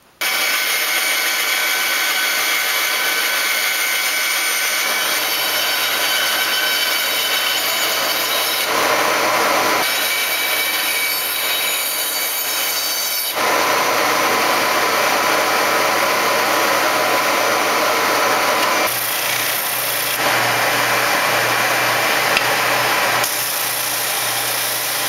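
A bandsaw cutting small feet from a scrap of red cumaru hardwood, then a Ridgid oscillating spindle sander sanding them. The steady machine noise changes abruptly several times where takes are joined.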